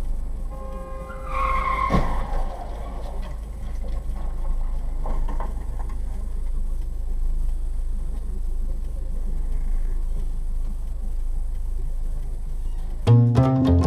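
Car tyres squeal for about a second, ending in one sharp bang of a collision about two seconds in, over steady road and engine rumble.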